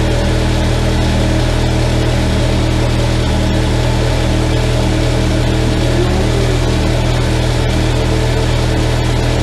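2012 Yamaha FZ6R's 600cc inline-four engine idling steadily, running on a newly installed battery.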